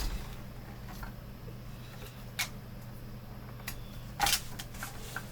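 Three short clicks and knocks of plastic monitor parts being handled, the loudest near the end, over a steady low hum.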